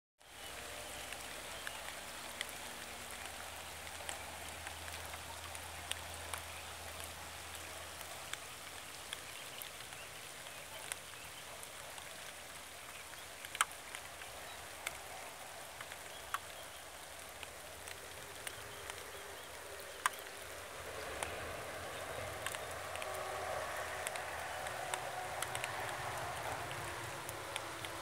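Rain falling steadily on a lake's surface, with scattered sharp taps of single drops close by. It grows a little louder about three quarters of the way through.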